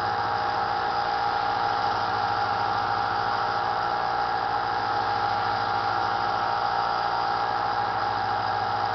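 Small bench belt sander's motor running with a steady hum, its 220 grit belt grinding the edge of a steel kitchen knife under light pressure.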